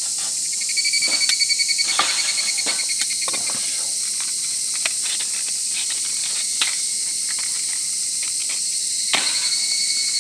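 Insects chirping in a steady high trill, with pulsed chirps in the first couple of seconds and again near the end. A few small clicks of hands handling a matchbox, and a match struck about nine seconds in.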